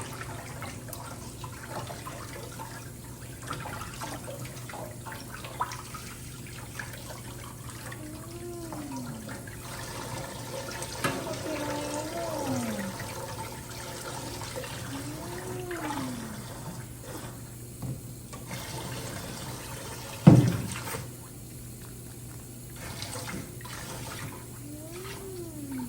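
Handheld shower spraying water over a Chihuahua puppy during her bath. There is one sharp knock about twenty seconds in, and the spray is softer after it.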